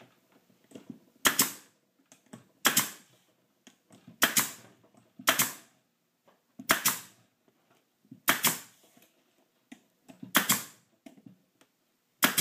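Pneumatic nailer driving nails through a pine board into the glued joints below: eight sharp shots, roughly one every second and a half, each with a brief tail.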